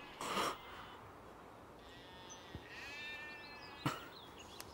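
Faint bleating of a sheep: one wavering call in the middle. There is a short rustle just after the start and a sharp tap near the end.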